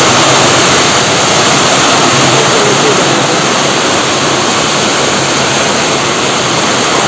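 Heavy rain pouring down steadily, a loud, even hiss of a downpour.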